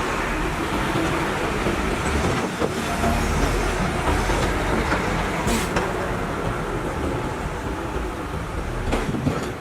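CAT 320 hydraulic excavator at work, its diesel engine and hydraulics running steadily, with a few sharp metallic clanks, one about two and a half seconds in and one near the end, and a brief hiss about halfway through.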